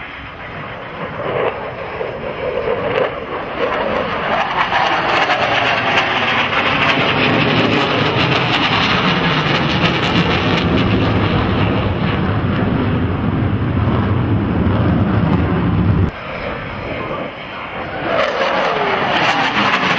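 F/A-18 Hornet fighter jets making passes: loud jet engine noise builds over the first few seconds and holds, with falling pitch sweeps as a jet goes by. It cuts off abruptly about sixteen seconds in, and another jet pass builds up again near the end.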